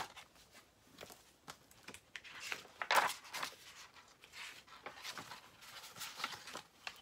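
Paper pages of a hardcover picture book being turned, making a handful of swishes and rustles. The loudest comes about three seconds in.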